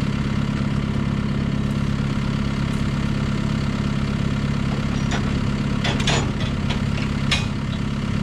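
A heavy farm vehicle's engine running steadily at an even pitch, with a few short clicks or rattles near the end.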